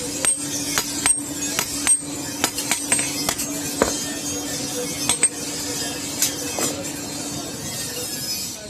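Hand hammer blows on hot iron on an anvil, sharp irregular strikes about two or three a second, over a steady hum that stops near the end.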